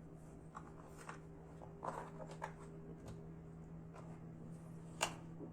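Light clicks and taps of a laptop's plastic case being handled and set down, over a faint steady low hum; the sharpest tap comes near the end.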